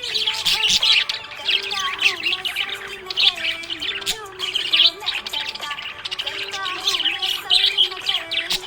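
Budgerigars chirping continuously: a dense run of quick, high chirps with a lower wavering warble beneath.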